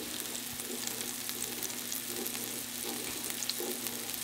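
Sliced onions sizzling in hot oil in a nonstick frying pan: a steady hiss dotted with small crackles and pops.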